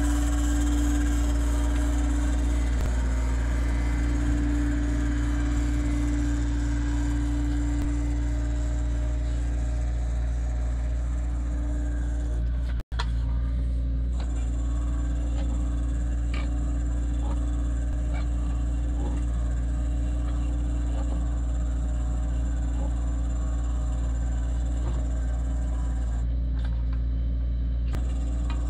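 Takeuchi TB175 mini excavator running steadily while driving an Auger Torque hydraulic earth drill, a continuous engine drone with a steady hum over it. The sound cuts out for an instant about halfway through.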